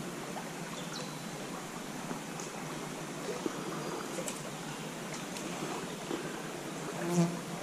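Shallow stream water flowing steadily, with scattered faint ticks and a brief louder low sound near the end.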